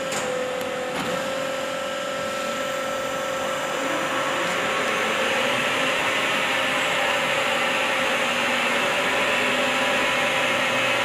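CNC pipe-threading lathe running: a steady mechanical hum with a held whine, growing louder and hissier about four to five seconds in.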